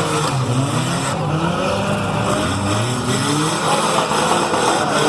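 Several demolition derby cars' engines revving up and down at the same time, their pitches rising and falling over one another.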